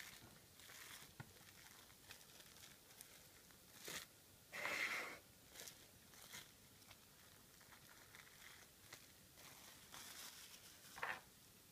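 Plastic cling film crinkling and rustling as it is peeled off a shaped rice ball, in faint scattered bursts, the loudest about five seconds in and a shorter one near the end.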